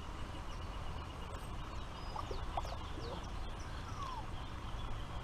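Steady outdoor background noise with a few short, thin bird chirps about halfway through.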